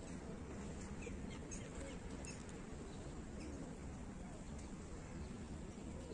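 Steady open-air city background noise with a low rumble and hiss, and a few faint, short, high bird chirps between about one and two and a half seconds in.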